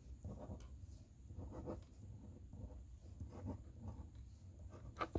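Faint scratching of a pencil or pen on paper in short strokes as small pebbles are sketched in, with a sharper tick near the end.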